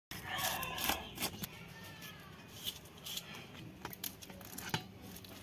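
Knife blade scraping the scales off a large raw fish on a stone floor: a run of short, uneven rasping scrapes and clicks.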